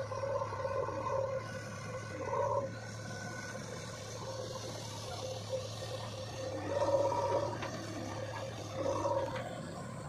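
JCB 3DX backhoe loader's diesel engine running steadily while the machine works, with a whining tone that swells and fades several times, loudest about seven and nine seconds in.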